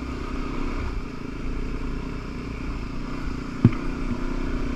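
Dirt bike engine running steadily while riding a rough trail, with one sharp knock about three and a half seconds in.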